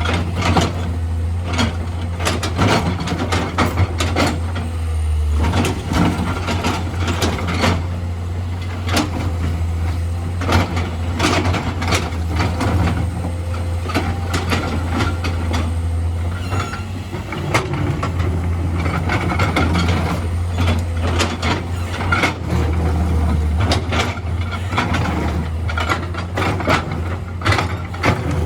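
Heavy diesel earthmoving machinery at work: a steady low engine drone with frequent knocks and clanks throughout.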